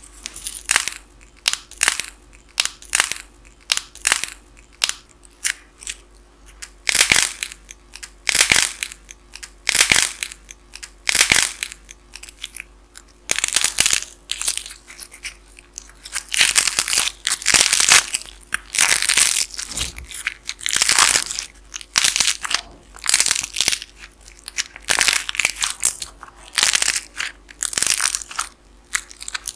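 Clay churro model with a dried outer crust crackling and crunching as fingers squeeze, bend and tear it apart. The crackles come in irregular bursts, some single snaps and some dense runs lasting a second or more.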